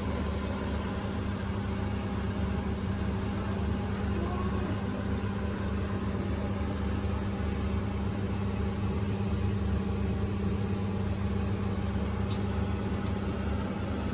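A kitchen appliance fan running: a steady low hum with a held tone that does not change.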